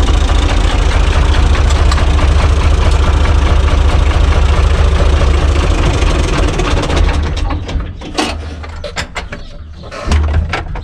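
UTB U445 DT tractor's diesel engine running loudly with a heavy low rumble, then shut off about seven seconds in. Its fall-away is followed by a few scattered knocks and clicks in the cab.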